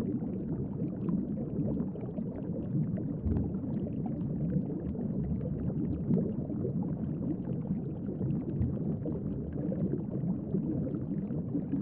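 Muffled underwater ambience: a continuous low bubbling and churning of water with faint crackles, steady throughout.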